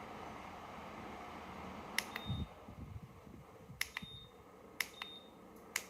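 PELONIS tower fan running with a steady whoosh, then about two seconds in its controls are pressed three times, about a second apart. Each press gives a click and a short high beep. The whoosh drops after the first press.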